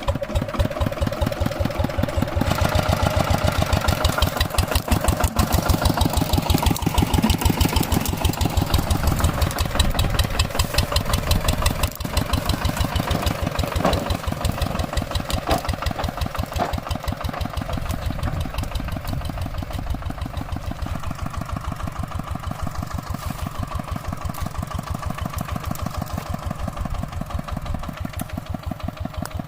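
Single-cylinder diesel engine of a two-wheel hand tractor running with an even, rapid chugging beat. It comes in abruptly at the start and settles a little lower and steadier in the last third.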